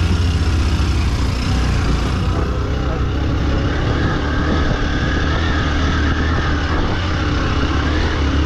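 Motorbike engine running steadily under way, with a continuous low hum throughout.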